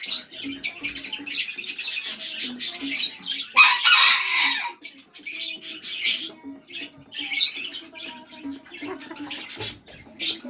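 Birds squawking: many short, harsh calls in quick succession, the loudest and longest one about four seconds in.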